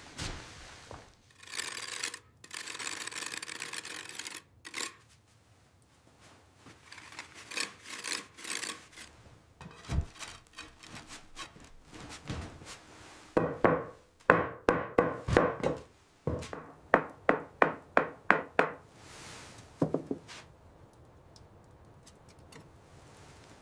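Hand tools working timber: runs of scraping, rasping strokes on wood, the last run at about three strokes a second, with a single thump about ten seconds in.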